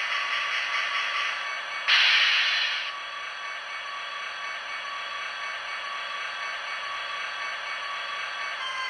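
Sound decoder of an HO-scale Santa Fe EMD SD45-2 model locomotive playing a steady diesel idle through its small onboard speaker, with a loud burst of air hiss about two seconds in that lasts about a second.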